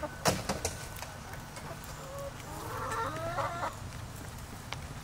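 Backyard hens clucking while they feed. A few sharp taps come in the first second, followed by a drawn-out, wavering hen call from about two seconds in to nearly four.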